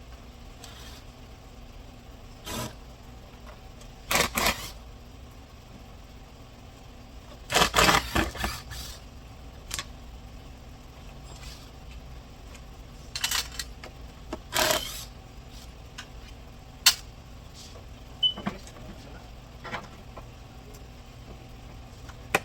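Hand tools clinking and clattering against metal car parts in scattered bursts, loudest about eight seconds in, over a steady low hum.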